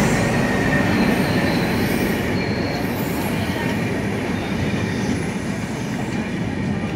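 Passenger train coaches rolling past along the platform as the train pulls in, a steady rumble of wheels on rail with thin, high wheel squeals. The sound eases gradually as the train slows.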